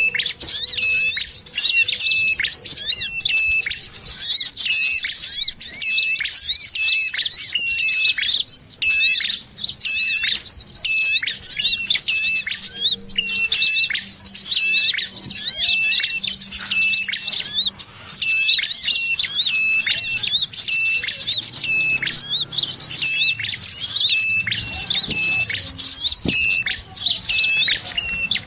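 Bird-lure recording of small birds calling nonstop: a dense, fast, high chattering of chirps over a short lower note repeated about every half second. The mix combines sogon chatter with the calls of the ashy tailorbird and the brown-throated sunbird, played to draw birds in.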